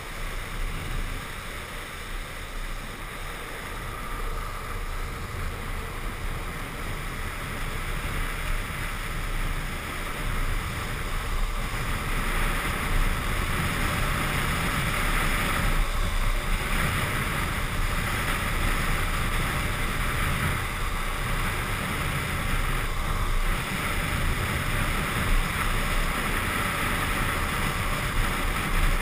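Wind rushing over the microphone and urethane longboard wheels rolling on asphalt at downhill speed. It is a steady rush that grows louder over the first dozen seconds as speed builds.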